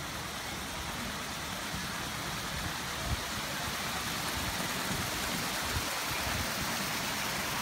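Garden fountain's water spilling over the rim of its stone basin into the pool below, a steady splashing that grows slightly louder as the fountain gets closer. A few brief low bumps on the microphone, the strongest about three seconds in.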